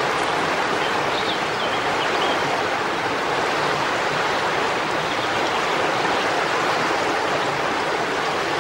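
Steady, even rush of water with no pitch and no rise and fall, starting suddenly at a scene cut.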